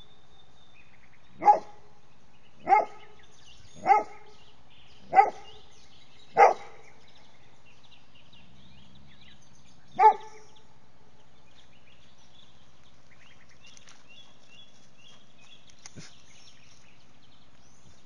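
A dog barking: five single barks about a second apart, then one more after a pause of a few seconds.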